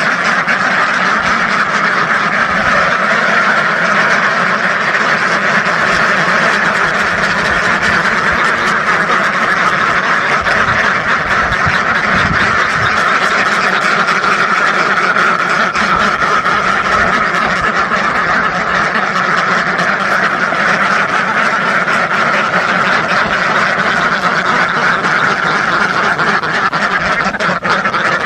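A large flock of ducks quacking all at once: a dense, steady din of overlapping quacks with no pauses.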